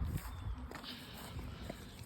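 Irregular rustling, scuffing and low knocks of someone working on a deck while pulling up weeds.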